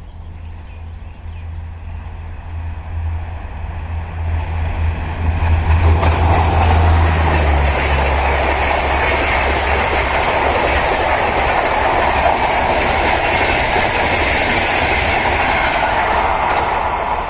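A WAP-5 electric locomotive hauling the Gatimaan Express through at speed without sounding its horn: a low hum builds as it approaches, then from about six seconds in the coaches rush past loudly with wheels clicking over the rail joints.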